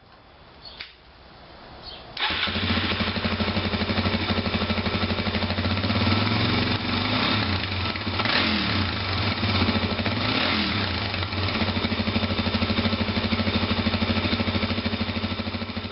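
Suzuki DR-Z400's single-cylinder four-stroke engine starting about two seconds in. It runs with a steady exhaust pulse, is revved briefly a few times in the middle, then settles back to idle.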